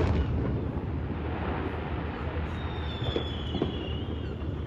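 Fireworks: the rumbling echo of a large aerial shell burst slowly dying away, with two faint pops a little after three seconds in and a thin high whistle falling in pitch from about halfway through.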